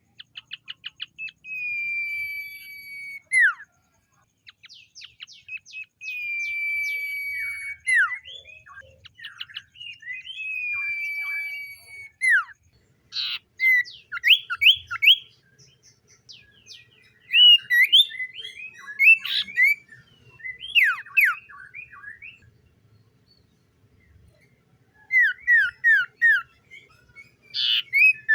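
Common iora singing: three long level whistles, each held for about two seconds and ending in a quick downward slur, the first led in by a rapid ticking. From about halfway on it switches to runs of short, quick down-slurred notes.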